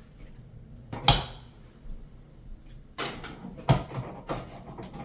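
A sharp knock about a second in, then several more knocks and scrapes: electrical cable being handled and pushed into the wall opening for the switch.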